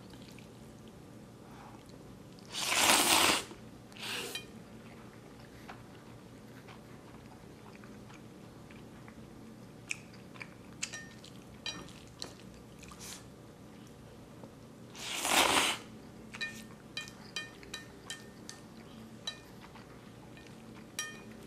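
A person eating instant black bean noodles: two loud slurps of noodles, a few seconds in and again around the middle, with wet chewing and short mouth clicks in between and toward the end.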